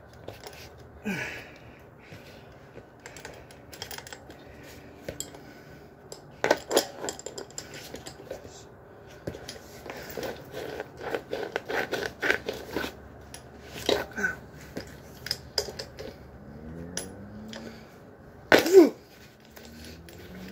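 A bicycle tyre being worked by hand and with a metal tyre lever on its metal rim: irregular clicks, knocks and rubbing as the tyre bead and lever go against the rim. It is busiest in the middle, with one louder brief noise near the end.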